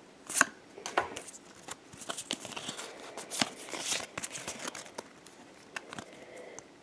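Foil booster pack wrapper crinkling and tearing open in the hands, with trading cards rustling as they are handled, in irregular sharp crackles and rustles.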